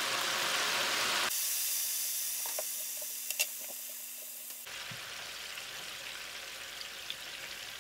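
Butter boiling down into ghee in a frying pan, sizzling steadily with a few faint pops in the middle, slowly getting quieter.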